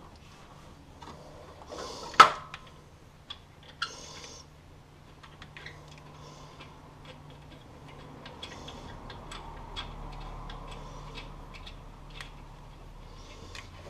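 Small metallic clicks, taps and clinks of bolts, tools and parts being handled in a car's engine bay during reassembly, with one sharp clank about two seconds in.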